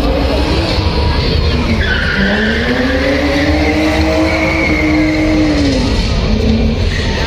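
A car engine revving up and back down while its tyres squeal.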